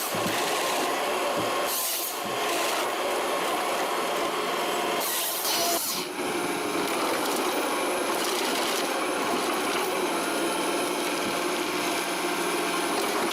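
Forestry harvester working timber: steady machine noise with a faint engine hum, and two short harsher bursts of sawing noise, about two seconds and five seconds in.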